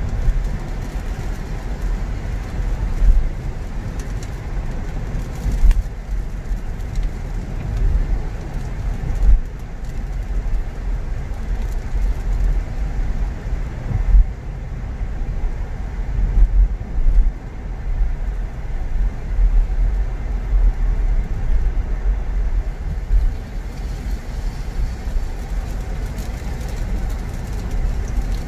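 Car driving along: a steady low rumble of engine and tyre noise, with a few brief louder bumps.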